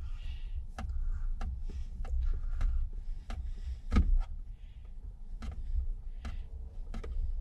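Light, irregular clicks and knocks of a screwdriver tightening a screw and of steering-wheel parts being handled, one louder knock about four seconds in, over a low rumble.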